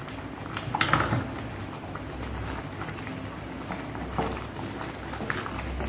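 Dal kulambu simmering and bubbling in a clay pot, with a metal ladle knocking and scraping against the pot as drumstick leaves are stirred in. There is a louder clatter about a second in and lighter knocks later.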